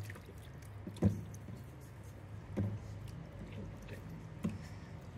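Hands washing raw mutton pieces in a steel bowl: wet handling of the meat with a few short knocks, over a low steady hum.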